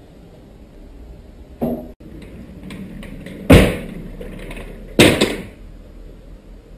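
Two loud sudden bangs about a second and a half apart, each dying away over about half a second, after a softer knock, over a steady hiss.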